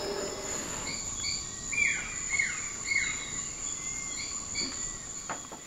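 Amazon rainforest chorus: a steady high insect drone with birds calling in short repeated chirps and a few falling whistles about two seconds in. A low howling, from howler monkeys, fades out within the first half second.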